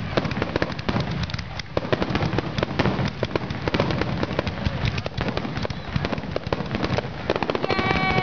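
Fireworks display at close range: a dense, continuous run of bangs and crackling as aerial shells burst overhead.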